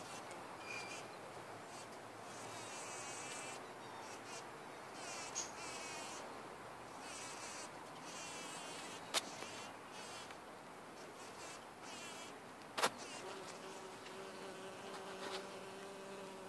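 Bumble bee buzzing as it feeds at a flower, settling into a steady pitched hum in the last few seconds as it flies. Two sharp clicks, the loudest sounds, stand out about halfway and about three-quarters through.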